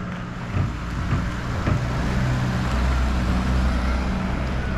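A motor vehicle's engine running close by: a steady low hum that grows somewhat louder about a second in.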